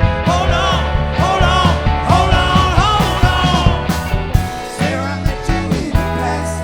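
A rock band playing funk- and soul-flavoured music, with a steady bass line and drums under a lead melody that bends and wavers in pitch.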